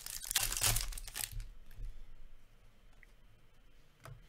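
Foil wrapper of an Upper Deck Ice hockey card pack torn open and crinkled for about a second, then a few light ticks as the cards are handled.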